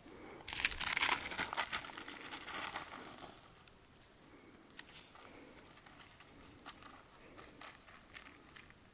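Paws of an Australian Shepherd crunching and scattering gravel on a gravel road, crackly and closest in the first three seconds, then fading to faint scattered crunches as the dog runs off.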